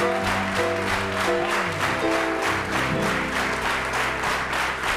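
Theatre audience applauding over live-sounding music with held, changing notes.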